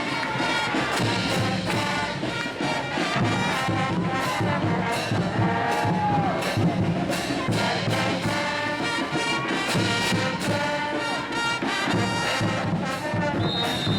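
Brass band music: horns playing a melody over a steady drum beat.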